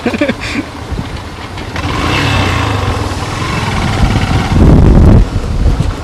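A motorbike's engine runs as it rides along, with wind rumbling on the microphone that builds and is loudest about five seconds in.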